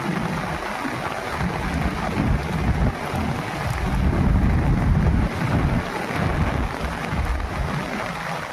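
Wind buffeting the microphone in irregular low rumbles over a steady rushing noise.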